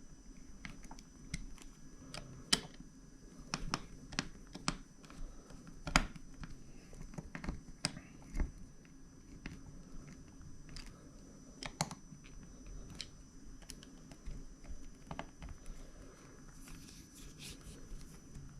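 Irregular small clicks and taps of a plastic work-light housing and its small screws being handled and fitted together by hand.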